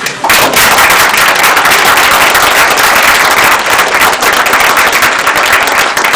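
Loud applause from a roomful of people clapping, breaking out just after the start and holding steady.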